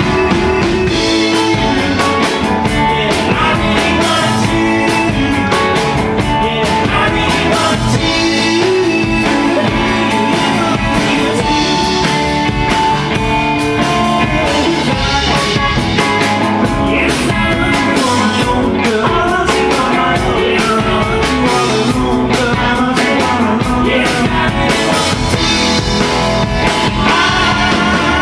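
A live rock and roll band playing an up-tempo song: electric guitar and a steady drum beat, with a sung lead vocal.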